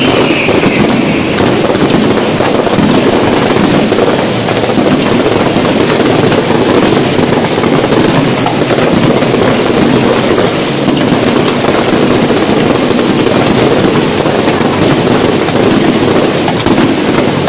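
A close-range fireworks barrage: a dense, unbroken mass of crackling and bursting shells, very loud throughout. A brief falling whistle sounds in the first second.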